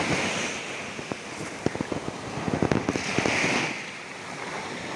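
Surf washing up a beach, a wave hissing in about three seconds in, with a run of sharp crackles and pops through the first three seconds.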